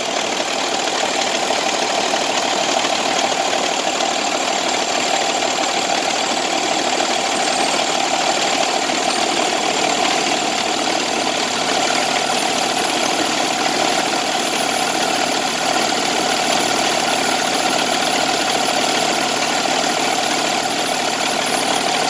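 Heavy-truck diesel engine running steadily with the throttle held down, picking up in level at the start and then holding an even, high-revving note.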